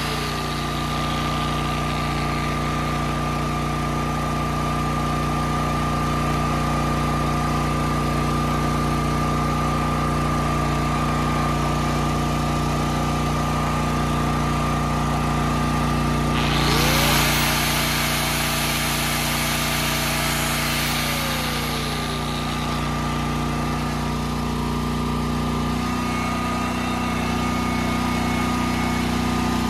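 Small portable generator engine running steadily. About 17 s in, a louder hissing noise with a whine that rises and falls lasts for about four seconds, and near the end the engine note shifts.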